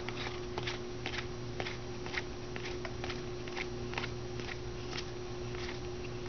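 Baseball cards being handled and flipped through one by one, making light clicks and snaps about three times a second over a steady low hum.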